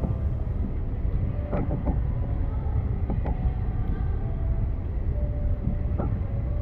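Steady low rumble of a moving vehicle, with a few faint knocks and a faint held tone.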